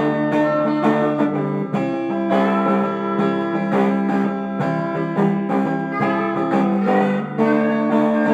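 Guitar music with no singing: plucked and strummed chords, a new note or chord about every half second, each left ringing.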